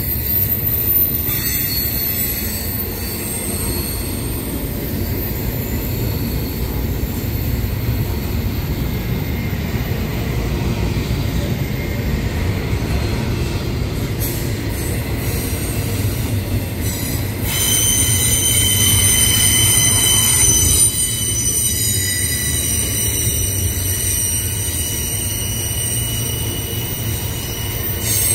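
Union Pacific intermodal freight train rolling past, its well cars and trailers giving a steady low rumble with thin, high, steady wheel squeal over it. The squeal grows louder about two-thirds of the way through.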